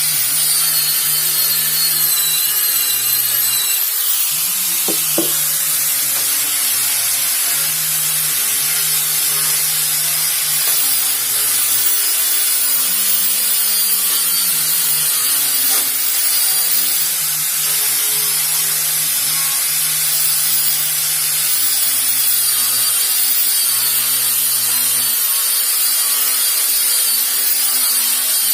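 Electric power sander running continuously against wood: a steady abrasive hiss with a thin high motor whine.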